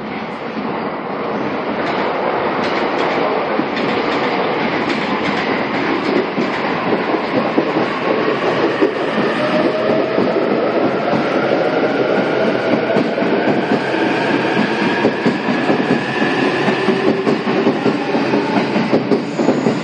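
Narita Express train (E259 series) pulling away and accelerating. The traction motors give a whine that climbs slowly in pitch, over a quickening clickety-clack of wheels on rail joints.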